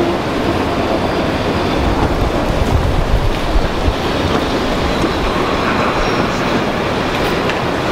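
Berner Oberland-Bahn electric train pulling in alongside the platform and rolling past close by: a steady rumble of wheels on the rails, with heavier low thumps about halfway through.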